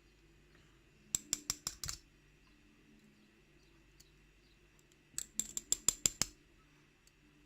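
Two quick runs of light, sharp metallic clicks, one about a second in and another of about ten clicks around five seconds in, from handling the gutted challenge lock's small pin and spring parts with tools.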